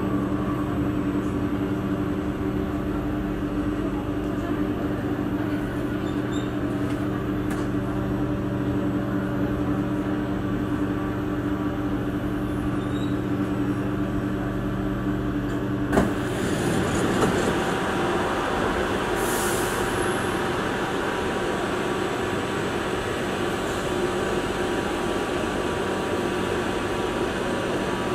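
Inside a Singapore MRT train carriage: a steady electrical hum of several tones from the train's running equipment, which cuts out abruptly with a click about halfway through. A rushing noise and a brief hiss follow, then a steady air-conditioning-like rush of the carriage standing at the station.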